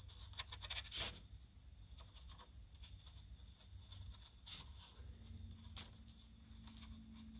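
Faint crackling and scattered soft ticks of thin plastic lens sheets from a laptop LCD backlight being handled and flexed, the clearest tick about a second in, over a low steady hum.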